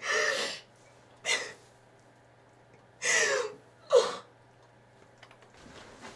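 A woman crying: four gasping, breathy sobs in two pairs, the first at the very start and the second about three seconds in.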